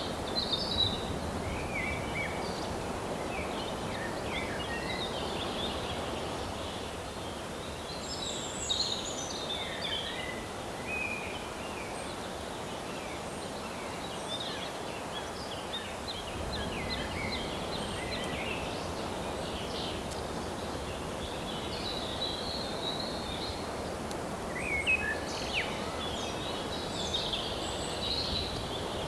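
Outdoor ambience: small birds chirping and trilling at intervals, including a rapid stuttering series near the middle, over a steady background hiss.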